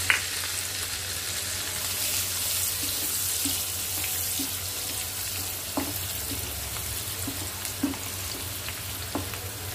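Chopped garlic frying in hot oil in a non-stick kadhai with a steady sizzling hiss. A wooden spatula stirs it, giving a sharp tap right at the start and a few light knocks against the pan later.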